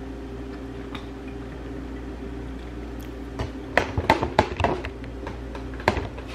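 Handling clatter of a plate and the camera: a quick run of clicks and knocks about three and a half to five seconds in and one more knock near the end, over a steady low hum.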